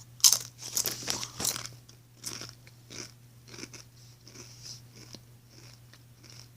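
Crunching into a Doritos tortilla chip and chewing it: a few loud crisp bites in the first second and a half, then a run of smaller crunches of chewing that grow fainter.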